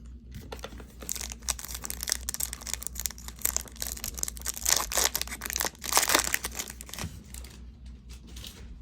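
Trading card pack wrapper being torn open and crinkled in the hands, a dense run of crackling that is loudest around the middle and dies away about a second before the end.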